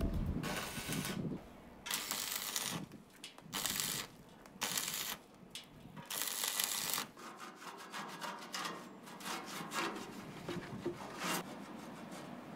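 Stick arc welding on steel: bursts of crackling, hissing arc noise about half a second to a second long, with short pauses between as the rod is struck and lifted, then thinner scattered crackles in the second half.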